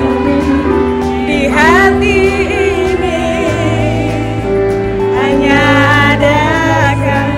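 Amplified singing into handheld microphones over a backing track, the voice swooping and wavering on held notes.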